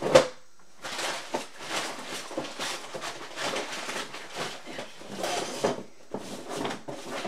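Handling noise: a sharp knock just after the start, then irregular rustling and light knocking as things are moved about.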